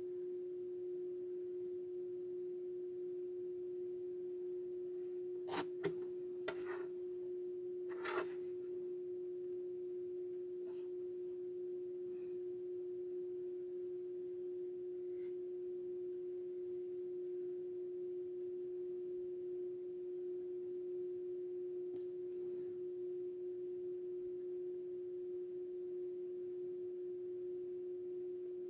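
A steady hum on one constant tone, with a few light clicks and knocks about six and eight seconds in.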